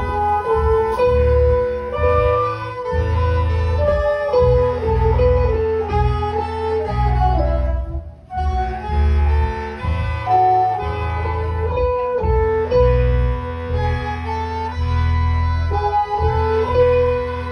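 Big band playing live: sustained horn lines over a heavy, pulsing bass, with a short break in the sound about eight seconds in.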